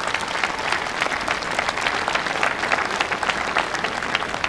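Crowd applauding: many hands clapping at a steady level.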